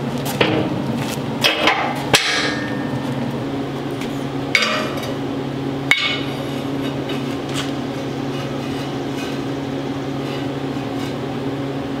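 Metal knocks and clanks as a sheet-steel chute and its steel brackets are set onto the frame and fitted. There are about six sharp knocks in the first half, the loudest about two seconds in, over a steady low hum.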